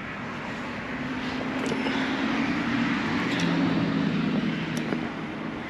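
A road vehicle passing by: its engine hum and road noise swell to a peak about four seconds in, then fade. A few faint clicks are mixed in.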